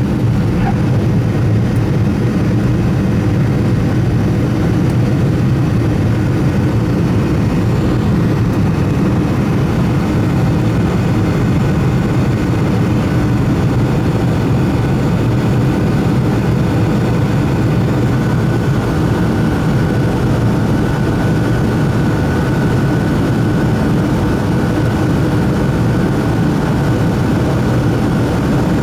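Boeing 757 jet engines running at a steady, loud level during departure. A faint steady whine becomes clearer over the second half.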